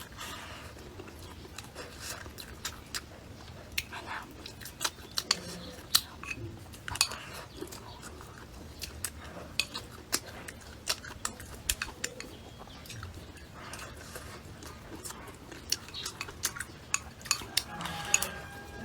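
Chopsticks and tableware clicking and clinking against bowls and plates during a meal: irregular sharp clicks, a few each second.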